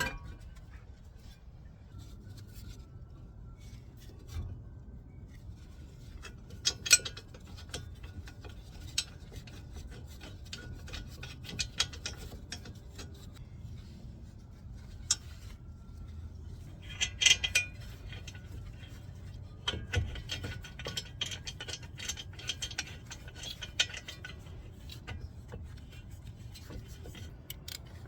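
Metal brake parts and hand tools being handled during brake reassembly: scattered clinks and taps with short bouts of scraping and rubbing, densest around seventeen seconds in and again from about twenty to twenty-four seconds.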